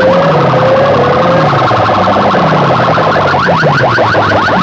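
Stacks of horn loudspeakers blaring an electronic siren effect at full volume: a fast rising chirp repeating about seven times a second over a slower, lower wailing sweep. In the middle the chirps blur into a steadier warble before the fast chirping comes back.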